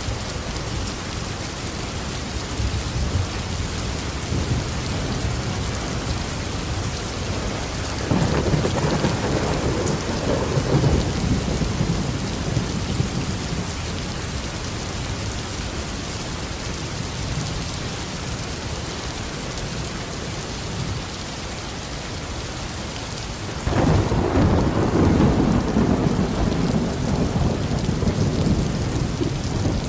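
Heavy rain falling steadily on a roof, with two rolls of thunder. The first rumbles up about eight seconds in and fades after a few seconds. The second, louder one breaks in suddenly about three quarters of the way through and rolls on for several seconds.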